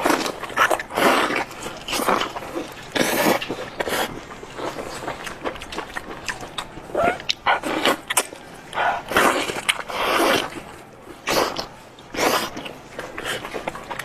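Eating sounds from a spicy braised sheep's head: wet sucking and slurping of meat and sauce off the head, with smacking and chewing in irregular bursts.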